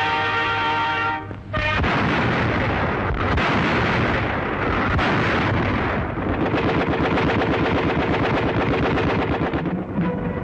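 A brass fanfare for the first second and a half, then dense gunfire and artillery fire on a 1940 newsreel soundtrack. From about six seconds in it turns into a fast, even rattle like machine-gun fire, with music underneath.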